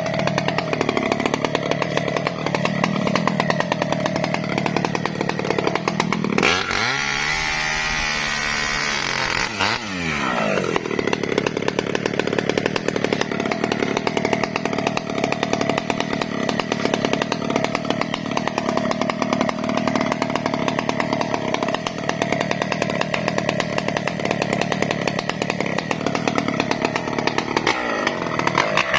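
Chainsaw cutting mahogany wood, its engine running at a steady speed. About six seconds in it revs higher for roughly three seconds, then drops back to its working speed.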